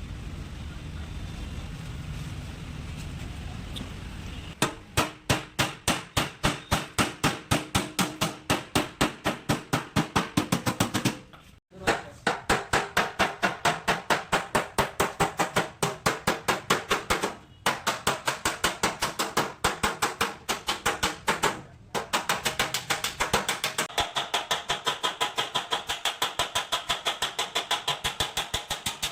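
Metal hammer beating out a dent in a car's sheet-metal body panel: rapid, even blows about five a second, stopping briefly three times. Before the hammering starts, a few seconds of steady noise.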